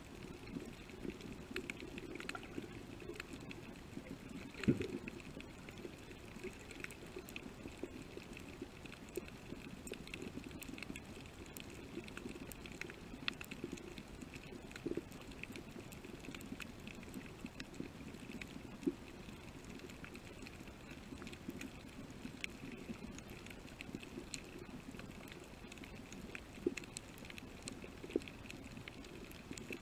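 Underwater coral-reef ambience: a steady muffled water hiss with many scattered sharp clicks and crackles, and one louder burst about five seconds in.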